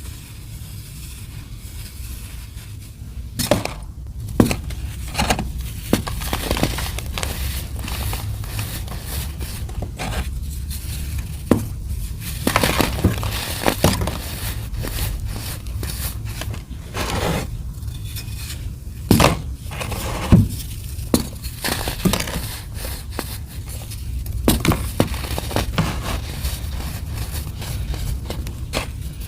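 Something brittle being crushed close to the microphone: irregular crunching and crackling, with a number of sharper snaps scattered through it, over a steady low hum.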